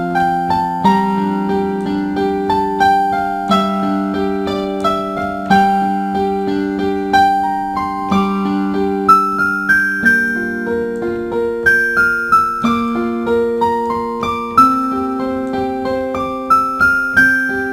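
Background piano music: a slow melody of single notes, each struck and fading, over lower chords.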